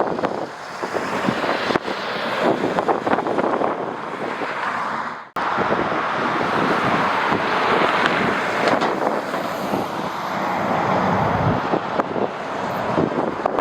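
Strong gusting wind buffeting the microphone: a rough rushing noise that swells and eases, breaking off abruptly for an instant about five seconds in.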